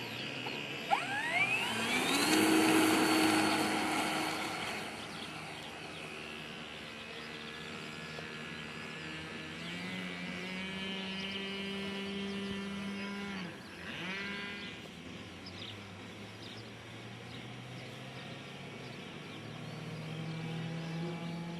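Electric motor and propeller of an FMS T28 Trojan RC model plane in flight. Its whine rises steeply in pitch about a second in and stays loud for a few seconds, then fades and swells again as the throttle and distance change, with a short drop and a rising pitch again around the middle.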